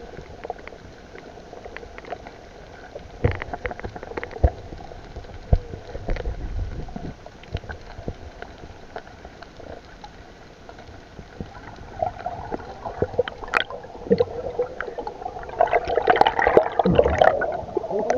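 Underwater sound through an action camera's waterproof housing: a steady muffled hum with scattered clicks and knocks, then a louder burst of bubbling and gurgling near the end as air bubbles stream past.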